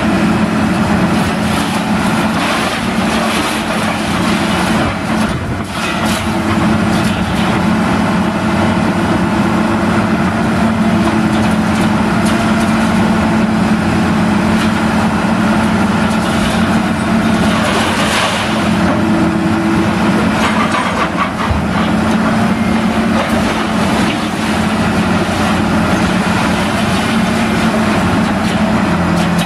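Baler running continuously, a loud steady mechanical drone with a constant low hum.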